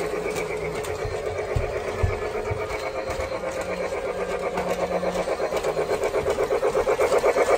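Polar Express toy train running on its plastic track: a fast, rhythmic mechanical whirring clatter, about six beats a second, growing louder toward the end as the train comes close. A couple of dull low thumps sound in the first half.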